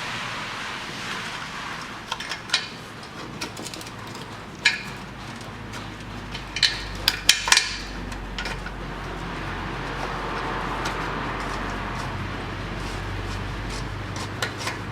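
Scattered metallic clinks and taps of bolts, washers and tools being handled while new bolts are threaded by hand into the exhaust heat shield mounts. There is a quick cluster of sharp clinks about seven seconds in.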